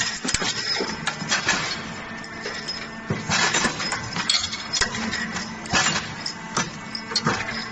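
Chain link forming and butt welding machine running, with irregular sharp metallic clanks and clinks from its forming tooling and the steel chain links knocking together. A steady machine hum sits underneath.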